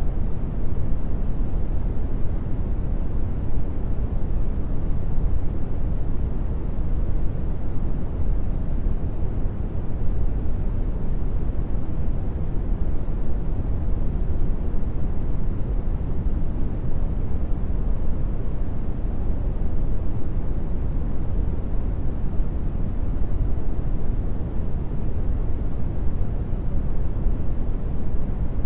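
Brown noise: a steady, deep, even rush with no pitch or rhythm, strongest in the lows and dull in the highs.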